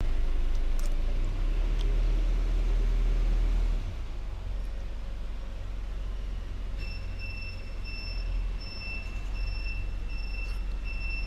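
Steady low rumble of a running vehicle, a little quieter after about four seconds. About seven seconds in, a high electronic beep starts repeating, roughly one and a half beeps a second.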